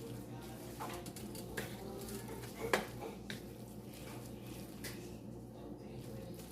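A utensil working in a pot of creamy pasta, giving a few scattered light clinks against the pot, the sharpest one just under three seconds in, over a steady low hum.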